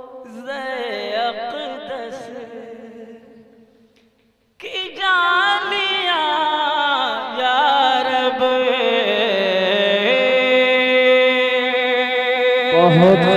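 A man's solo voice chanting a naat in long, wavering held notes. It fades away about four seconds in and comes back strongly half a second later on a new long phrase.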